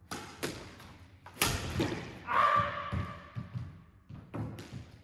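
A squash ball being played: sharp knocks of the racket striking the ball and the ball hitting the walls and the wooden court floor, each with a short echo. The loudest knock comes about a second and a half in, and a short squeak, like a shoe on the floor, follows about halfway through.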